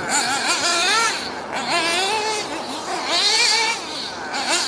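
Alpha Plus nitro engine in an RC buggy revving up and down as the car is driven around the track on its race tune: a high-pitched whine that rises and falls every second or so.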